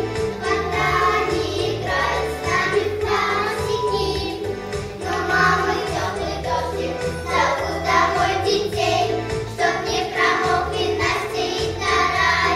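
Children's choir singing a song over an instrumental accompaniment.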